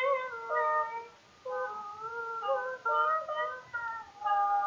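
A woman singing solo and unaccompanied, a melodic phrase moving up and down in pitch, a short pause about a second in, then further phrases ending on a long held note.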